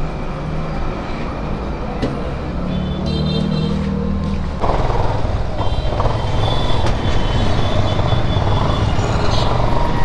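A motor vehicle engine running steadily, becoming louder a little under halfway through, with faint high tones over it.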